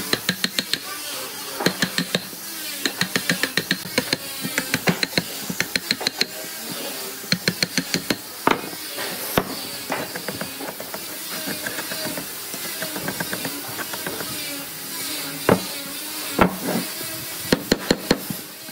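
Wooden mallet striking a steel chisel in quick runs of sharp knocks, several per second with short pauses between runs. The chisel is chopping out a notch in an old wooden beam.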